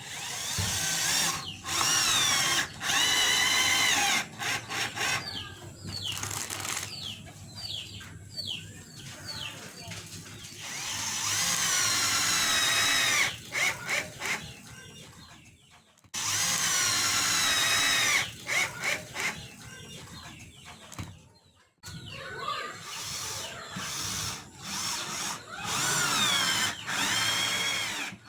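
Handheld power drill run in several bursts of a few seconds, its whine rising as it speeds up and falling as it slows, with short pauses between.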